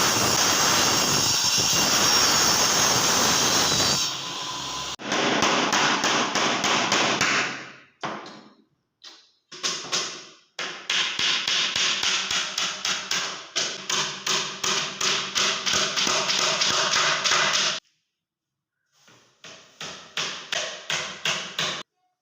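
A steady rushing noise for about four seconds, then hammering on wood: rapid, even taps at about three a second, in several runs with short pauses between them.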